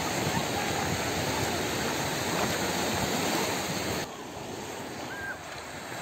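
Sea surf washing on a rocky shore, a steady rush of water; about four seconds in it drops suddenly to a quieter, duller rush.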